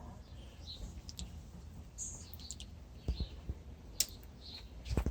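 Small birds chirping repeatedly in the background, with a few sharp clicks and two low knocks from something being handled.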